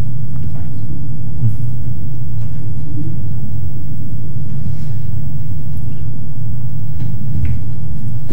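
A loud, steady low rumble, with a few faint taps scattered through it.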